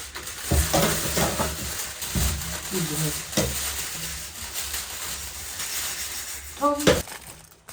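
Meat sizzling as it fries in a pot over a fire, with a utensil stirring and knocking against the pot a few times.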